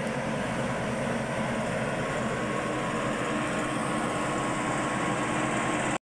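Maxxi Bimo 102L rice combine harvester running steadily as it travels along, its engine and drive giving an even drone with a thin steady whine.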